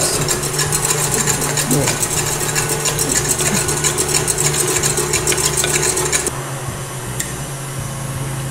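Electric stand mixer whipping egg whites to stiff peaks in a steel bowl: a steady motor hum with the wire whisk ticking rapidly against the bowl. The high rattle drops away about six seconds in while the hum carries on.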